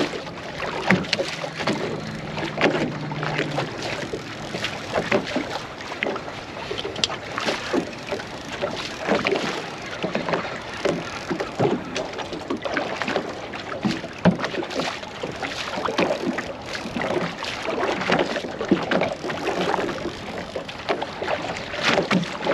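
Waves lapping and slapping against a small aluminium boat hull, with scattered knocks and splashes. A low steady hum runs through the first few seconds.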